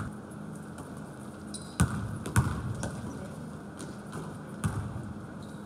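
A basketball bouncing on a gym floor: three loud thuds, two close together about two seconds in and another near the end, over the steady noise of play in the gym.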